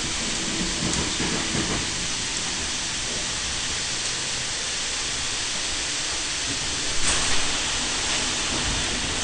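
Moving Sydney suburban electric train heard from inside the carriage: a steady rumble and hiss of the wheels running on the rails, with a brief louder rush about seven seconds in.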